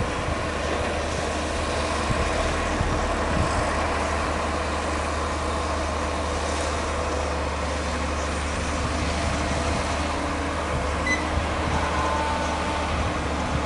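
Heavy diesel construction machinery running steadily, a continuous low engine rumble under a broad mechanical noise.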